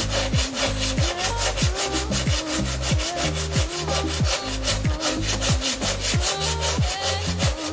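Hand sanding of hardened body filler with coarse sandpaper on a sanding block: quick, even back-and-forth scraping strokes, about six a second, that stop near the end. Background music with a bass line plays underneath.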